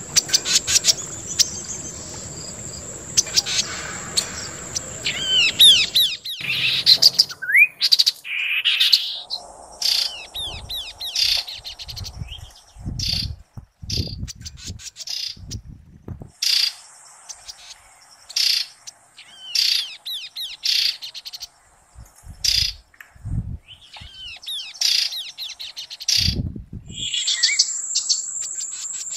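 Chestnut-capped babbler (Timalia pileata) calling in repeated short bursts of rapid chattering notes with quick sweeping whistles, a phrase every second or two with brief gaps between.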